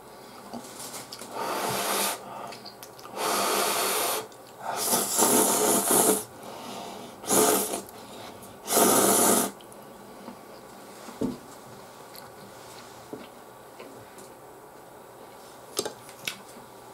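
A person slurping instant chicken ramen noodles from a cup: five loud slurps over the first ten seconds, then a quieter stretch with a few small clicks near the end.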